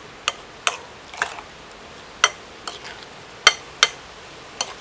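Metal spoon stirring a thick minced crab-meat mixture in a ceramic bowl, clinking against the bowl about eight times at an irregular pace.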